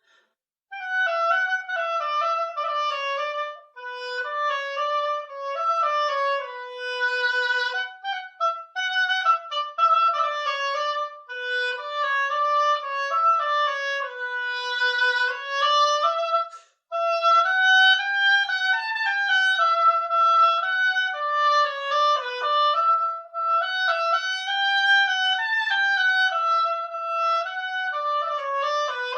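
Instrumental music: a melody played in two voices moving together in parallel, in phrases with short breaks about four and seventeen seconds in.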